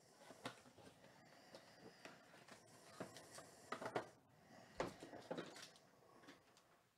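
Faint handling sounds of a 2018 Topps Tier One hobby box being opened and its foil-wrapped card pack pulled out and laid down: scattered soft taps, rustles and crinkles of cardboard and foil.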